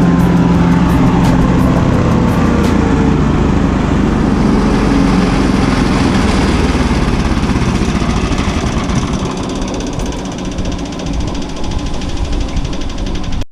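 Cobra wood chipper's engine running steadily.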